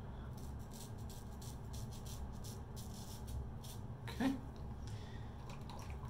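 Gem Pushbutton single-edge safety razor scraping across lathered stubble on the upper lip in a run of short, scratchy strokes, over a steady low hum. A brief louder sound comes about four seconds in.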